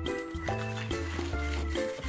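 Background music: a melody of short, quickly changing notes over a low bass line.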